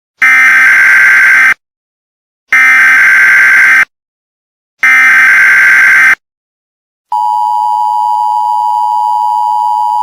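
Emergency Alert System SAME header: three loud bursts of warbling digital data tones, about a second apart. After the third burst comes the steady two-tone EAS attention signal, which announces an emergency broadcast message.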